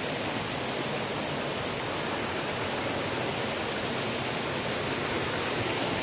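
Steady rush of a small waterfall, an even hiss of falling water that holds at one level throughout.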